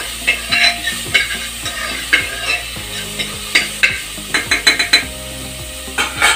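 A steel spoon stirring chopped bamboo shoot frying in oil in an aluminium pressure cooker, scraping and clinking against the pot over the sizzle of the frying, with a quick run of taps about four and a half seconds in.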